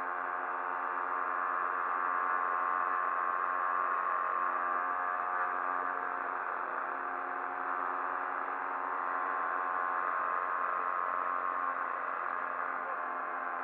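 Moped engine running steadily at cruising speed, a constant buzzing drone with no rise or fall in pitch.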